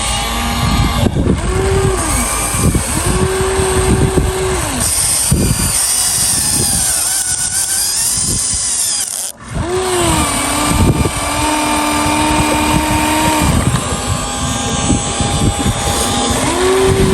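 Hydraulic pump motor of a radio-controlled excavator whining. It spins up, holds a steady pitch and winds down several times as the machine's functions are worked, over a constant rumble and crackle.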